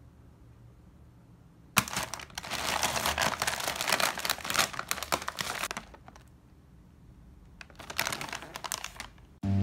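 Plastic packaging pouch crinkling as it is handled, in two spells: a longer one starting about two seconds in and a shorter one near the end.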